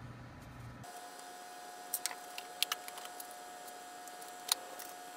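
Workshop sound played back at six times speed: a steady high-pitched hum with scattered sharp metallic clicks and ticks from aluminum parts and tools being handled, starting about a second in.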